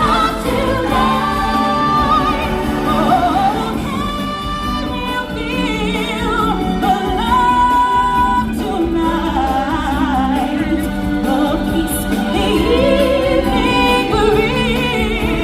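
Live stage-show music with singers holding long, wavering notes over the accompaniment, and a choir of voices joining in.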